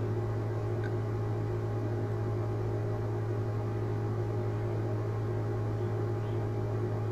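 Steady low electrical hum with a soft hiss.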